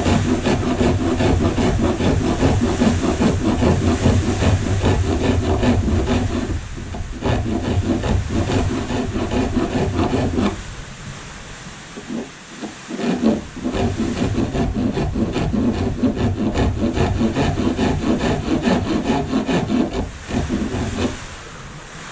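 Hand rasp filing the carved wooden tail of a corgi carving in fast back-and-forth strokes. The strokes break off for a couple of seconds about halfway through, start again, and stop shortly before the end.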